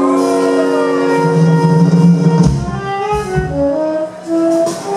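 Live jazz-fusion band playing: a chord held for about two and a half seconds, then a line of short notes stepping up and down, over bass and drum hits.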